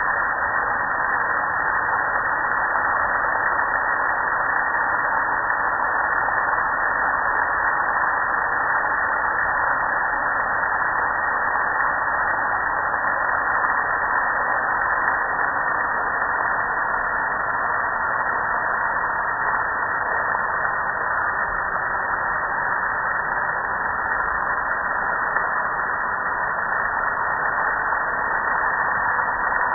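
Steady hiss of a water jet spraying onto a soapy gas grill.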